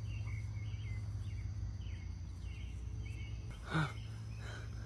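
Faint bird chirps over a steady low rumble of outdoor background noise, with one brief voiced sound from a person about three-quarters of the way through.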